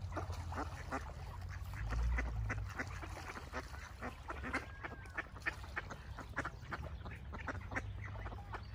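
Mallard ducks quacking, many short quacks in quick succession, over a low steady rumble that swells briefly about two seconds in.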